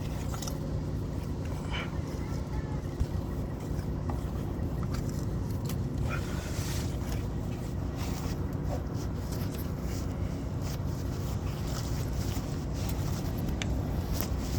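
A steady low engine drone runs throughout, with light rubbing, scraping and occasional clicks as the purge valve bore on the air dryer is wiped out with a cloth.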